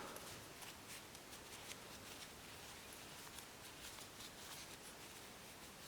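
Near silence, with a few faint, scattered light ticks from small knife parts being handled.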